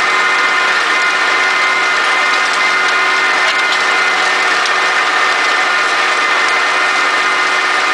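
Massey Ferguson 3085 tractor running steadily under load while pulling an Amazone Catros 3001 disc harrow through dry soil, heard from inside the cab: an even mechanical noise with a constant whine over it.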